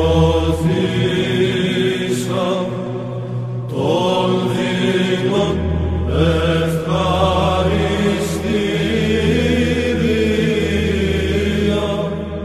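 Chanted vocal music over a held low drone, in long sung phrases. The low drone drops out about half a second in and comes back about five and a half seconds in.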